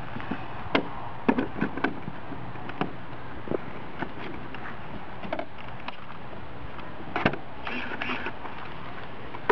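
Scattered small clicks and knocks of hands working inside the hull of an RC boat, around its engine, over a steady background hiss.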